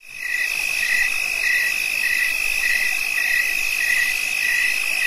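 A loud, steady high electronic tone with a slightly lower beep repeating a little under twice a second, starting abruptly; the host blames the noise on her children.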